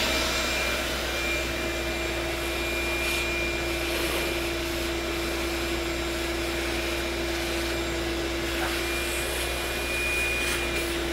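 Shop vacuum running steadily, a constant hiss with a steady hum, as it sucks up metal chips from a freshly milled surface.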